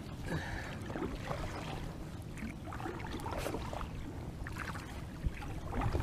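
Water lapping and trickling against a plastic kayak hull, with wind rumbling on the microphone and a single knock near the end.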